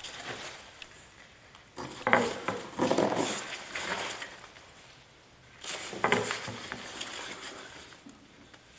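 Packed CNC kit parts being handled and set down: knocks, clatter and rustling of packaging in two bouts, about two seconds in and again near six seconds.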